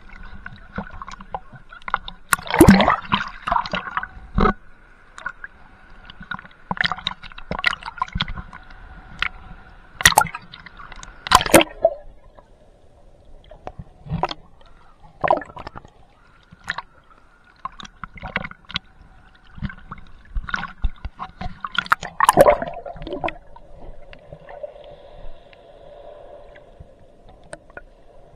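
Sea water sloshing and gurgling around a camera in a waterproof housing as it bobs in and out of the surf, with many irregular sharp knocks and splashes. A faint steady hum lies underneath.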